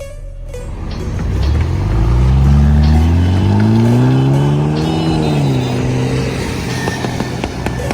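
Remapped BMW F10's engine revving up steadily for about four seconds, then dropping back quickly and holding at a lower, steady note.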